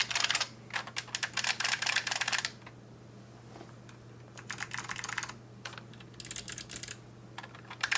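Typing on a mechanical keyboard: fast runs of loud clicking keystrokes in several bursts, with a pause of about two seconds about a third of the way in.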